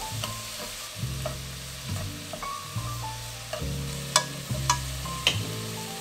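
Bean sprouts, scallions and carrot ribbons sizzling in a nonstick frying pan as they are stirred and tossed with chopsticks, with several sharp clicks of the chopsticks against the pan, most of them in the second half.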